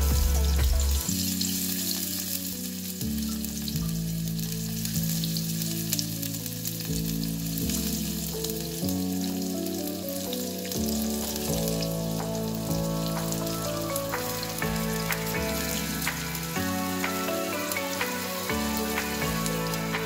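Onion pieces sizzling and crackling in hot oil in a small steel saucepan as more pieces are cut in. Soft background music with steady low chords plays underneath.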